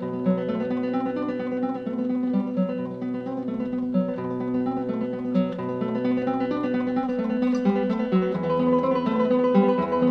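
Background music: a plucked guitar playing a Latin-style piece, with the notes and chords shifting about seven and eight seconds in.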